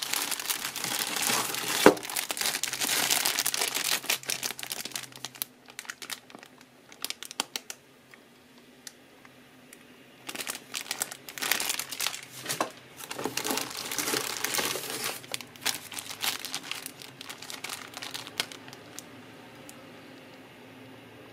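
Clear plastic packaging bags crinkling as they are handled and pulled from a box, with a sharp crack about two seconds in. The crinkling comes in two long spells with a quieter stretch of scattered clicks between them, and dies away near the end.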